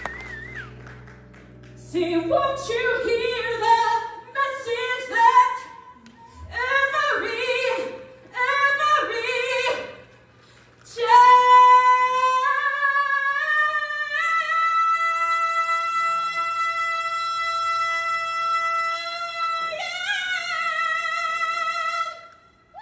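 A woman singing solo into a microphone over a PA, with only faint accompaniment: several short sung phrases, then one long held note of about eleven seconds that steps up slightly a few seconds in and wavers near the end.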